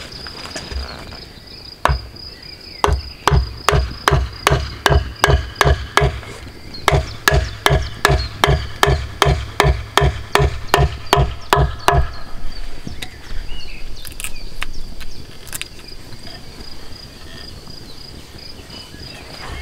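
A wooden mallet driving a wooden leg into a half-log tabletop: a run of sharp knocks, about three blows a second, with a short pause about six seconds in, stopping about twelve seconds in. A steady high insect trill continues throughout.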